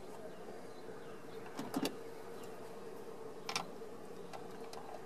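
Light metallic clicks of a Phillips screw and hand screwdriver against the metal APIM module housing as the screws are started: a couple about two seconds in and another about a second and a half later. A faint steady hum runs underneath.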